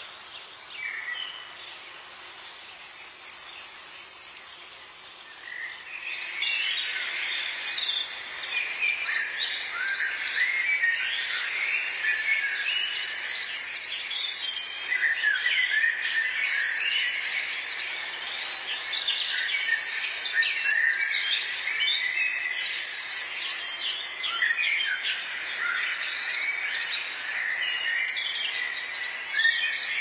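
A chorus of many songbirds chirping and whistling, sparse at first and much denser from about six seconds in. A high, rapid trill recurs every several seconds.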